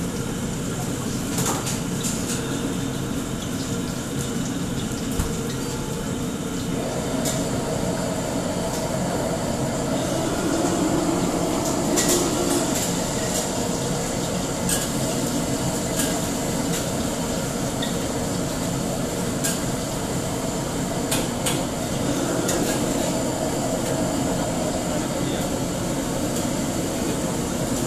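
Steady roar of a restaurant kitchen's wok burners and extraction hood, with scattered clanks of metal utensils against steel woks and pans.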